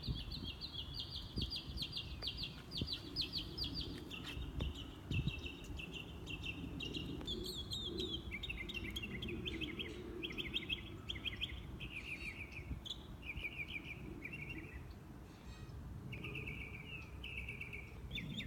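A bird chirping in rapid high trills, one short series after another, gradually stepping lower in pitch, over a faint low background rumble.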